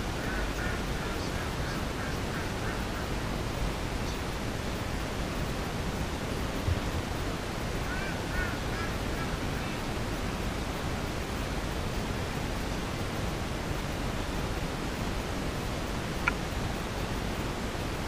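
Steady, even noise hiss of a poor recording, with faint short chirping calls near the start and again about eight seconds in, and a brief click near the end.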